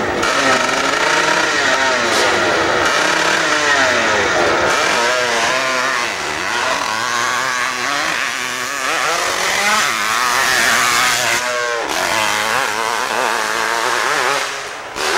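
Hillclimb dirt bike engine revving hard through a full run up the slope, its pitch rising and falling again and again, with a brief drop and sharp climb in revs about eleven seconds in.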